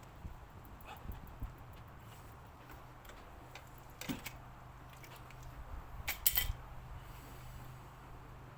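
Scattered sharp clicks and knocks of hand tools and plastic fittings while a fuel line is unclipped from the fuel rail of an Audi TT engine. The loudest cluster of clicks comes a little past the middle. A steady low hum runs underneath.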